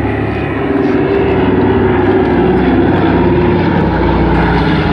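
Douglas DC-3 Dakota's two radial piston engines and propellers running steadily as the plane banks and passes low overhead, growing louder about a second in.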